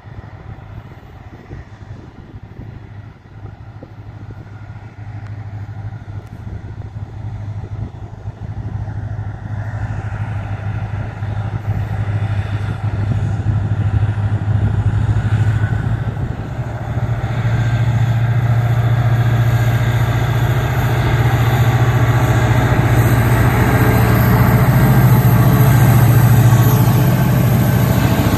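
WDP4D diesel locomotive with its EMD 16-cylinder two-stroke engine approaching under power with a passenger train, a steady low engine drone and rising wheel-on-rail noise growing louder as it nears. It passes close by near the end.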